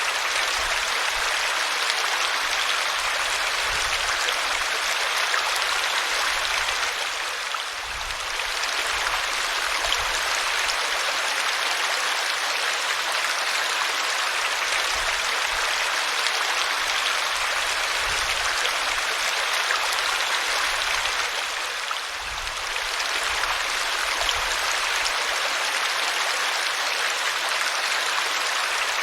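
Small waterfall: a steady rush and splash of falling water, easing slightly twice.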